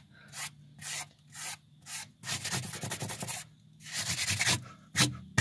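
A hand rubbing and brushing dirt off a worn truck tire's tread in repeated scraping strokes. The strokes come about two a second at first, then turn into a few longer rubs, with one sharp swipe near the end.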